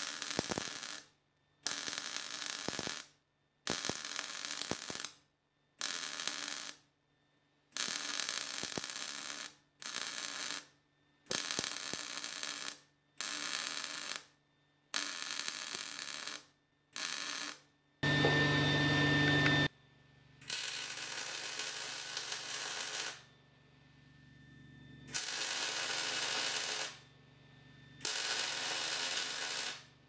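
MIG welder arc crackling and sputtering in a string of short stitch welds, each about a second long with brief pauses, then a few longer runs of two to three seconds in the second half.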